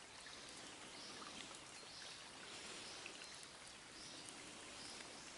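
Faint outdoor ambience at a still pond: a steady low hiss, with faint high calls repeating about once a second.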